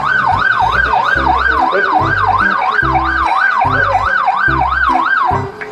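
Police siren wailing in a fast up-and-down yelp, about two and a half sweeps a second, with low irregular thuds underneath. It cuts off shortly before the end.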